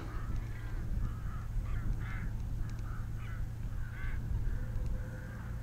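Birds calling over and over, short calls several a second, over a steady low rumble of wind on the microphone.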